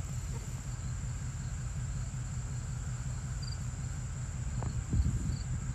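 Steady high drone of crickets over a low rumble, with faint short chirps in the second half and a dull thump near the end.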